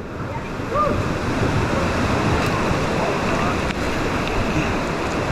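Fast-flowing river water rushing steadily around a raft, with faint voices now and then.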